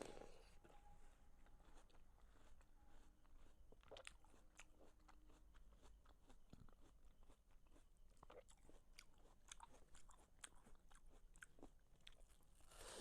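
Faint wet crunching and chewing of watermelon, with scattered short clicks of the mouth throughout.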